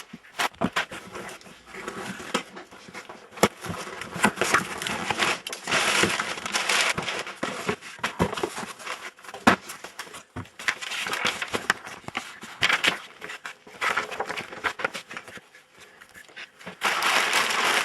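Packaging being handled and opened: rustling and crinkling, with scattered sharp clicks and taps from small hard parts.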